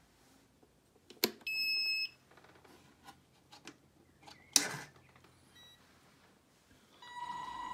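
A switch click, then a single electronic beep about half a second long from a radio-control transmitter being switched on. A few light clicks and a sharp click follow as the model truck is handled and switched on. Near the end a steady electronic tone starts.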